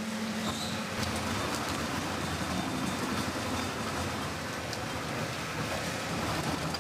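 Stone millstone of a traditional olive mill rolling round its basin and crushing whole olives into paste: a steady grinding rumble with scattered small clicks.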